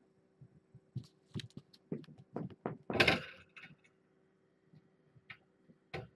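Fabric cat wand toy knocking and rustling against the camera in a quick run of bumps, the loudest about three seconds in, then two faint taps near the end.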